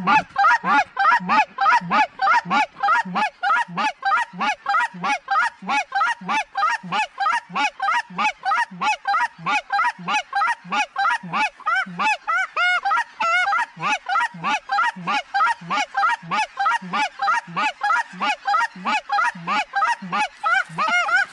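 Goose honks repeating quickly and very evenly, about three a second, with a short change in the call pattern about halfway through.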